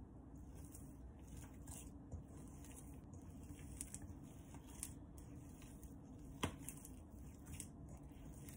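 Hands mixing and squeezing soft bread dough in a stainless steel bowl: faint squishing and rustling with light scattered clicks, and one sharper click about six and a half seconds in.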